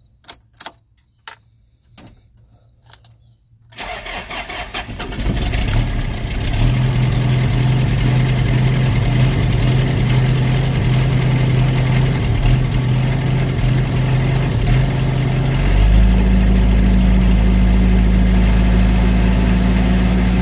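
1995 Isuzu NPR's 3.9-litre turbo four-cylinder diesel cold-starting on waste vegetable oil after glow-plugging. A few clicks come first, then the starter cranks it about four seconds in, it catches within a couple of seconds and settles into a steady idle. About sixteen seconds in, the engine speed rises and holds higher.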